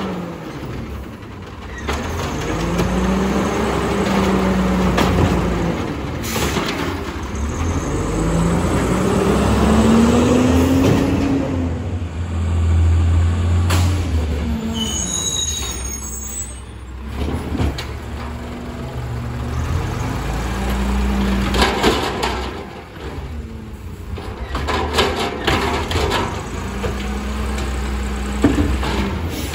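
CNG Autocar ACX side-loader garbage truck with an Amrep automated arm: the engine revs up and down several times as the hydraulic arm lifts and dumps a cart. Midway it hisses as it pulls ahead, an air-brake release, then idles with sharp knocks from the arm and carts near the end.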